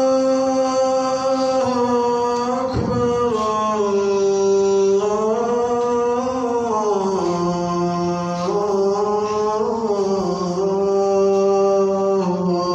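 A muezzin's solo male voice chanting the adhan, the call to prayer, in long held notes that glide slowly up and down with melismatic turns.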